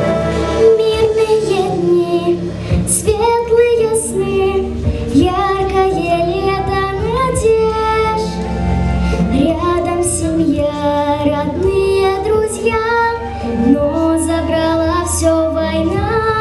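A child singing a song over an instrumental backing track.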